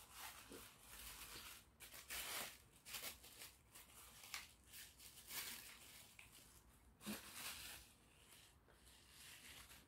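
Faint, irregular crinkling and rustling of a thin plastic bag as a toy piece is unwrapped and pulled out of it.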